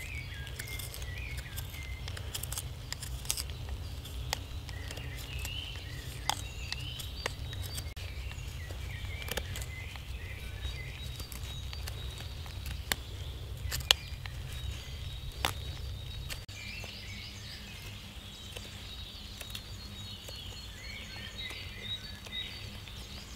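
Knife blade scraping at charred fungus, with sharp, irregular clicks and scratches as the burnt material is picked out. Small birds chirp in the background over a low, steady outdoor rumble.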